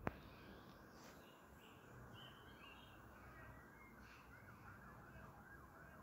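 Quiet garden ambience: a faint distant siren wavering up and down, with a few soft bird chirps. A single sharp click sounds right at the start.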